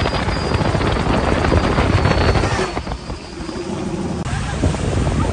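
Gas-turbine-powered speedboat passing at speed: a loud jet-like rush with a high, steady turbine whine over it that stops about three and a half seconds in.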